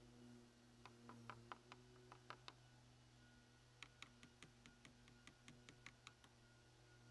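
Faint, irregular clicks of a flat screwdriver working a headlight mounting screw: a short run of ticks about a second in, then a longer run of closer-spaced ticks about four seconds in.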